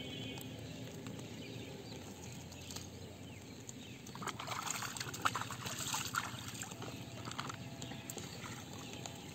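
Shallow rice-paddy water splashing and trickling as hands work in it around a bamboo fish trap, busiest about four to six seconds in.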